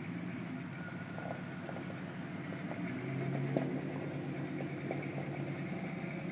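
Lifted Dodge Ram pickup's engine running with a steady low rumble as the truck drives slowly, a little louder about three seconds in, with one sharp tick shortly after.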